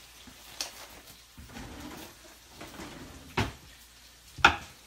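A few sharp knocks and clatters of kitchen items being handled on a counter, the loudest near the end.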